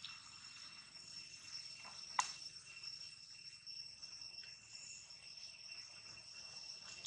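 Steady high-pitched drone of insects, two even tones held throughout, with one sharp short click about two seconds in.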